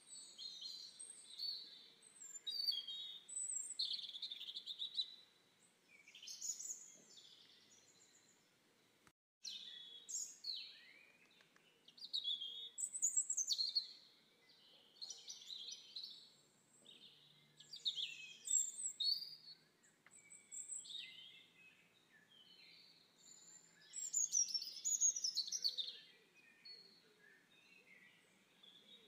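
Songbirds chirping and trilling in short, high phrases every second or two over a faint background hiss, with the sound cutting out for a moment about nine seconds in.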